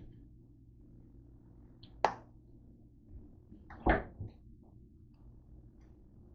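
Two sharp knocks about two seconds apart, the second followed by a lighter one, as things are handled on a kitchen counter, over a faint low steady hum.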